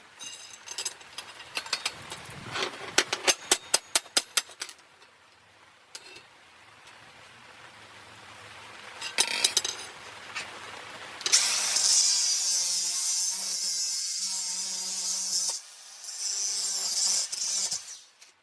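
A power tool working on the steel baffle inside a motorcycle exhaust pipe, removing the baffle's centre piece. A quick series of sharp metallic knocks and clicks comes first, then the tool runs with a steady hiss in two spells near the end, each stopping abruptly.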